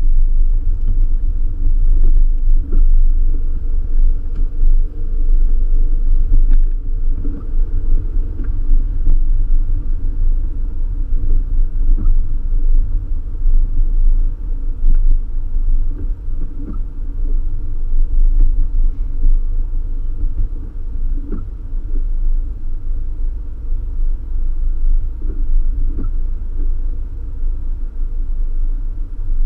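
Suzuki Jimny driving on a wet road, heard from inside the cabin: a steady, loud low rumble of engine and tyres, with a few faint knocks from the road scattered through it.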